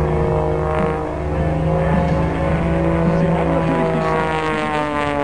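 Piston engine and propeller of an aerobatic plane running steadily as it flies past, its pitch sliding with the pass.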